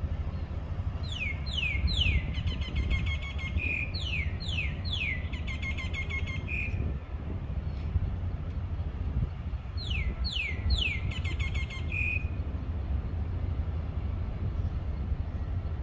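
A songbird singing the same phrase three times, a longer gap before the third: three quick falling notes, then a fast trill ending on a short note. Under it runs a steady low rumble.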